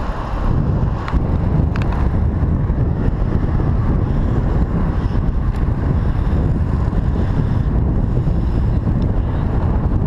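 Wind buffeting the microphone of a camera on a moving bicycle: a steady low rumble, with a couple of faint clicks about one and two seconds in.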